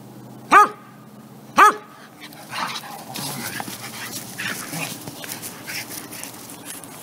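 Dogs play-wrestling: two sharp, loud barks about a second apart, then a few seconds of softer, irregular scuffling noise as they tussle on the grass.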